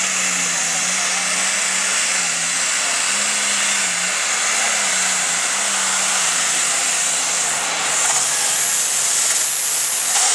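Heavy super stock pulling tractor's turbocharged diesel engine running flat out under load down the pull track: a loud, steady engine sound with a high whine over it. The whine starts to fall right at the end.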